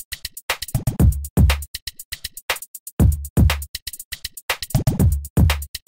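Electronic background music with a drum-machine beat: pairs of deep kick drums about half a second apart, over fast, even hi-hat ticks.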